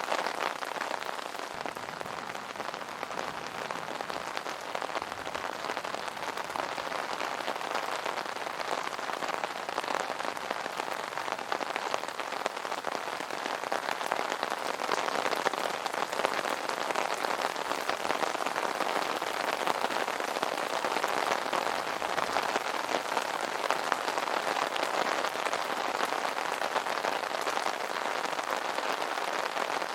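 Steady rain pattering on an umbrella canopy, a dense continuous patter of drops.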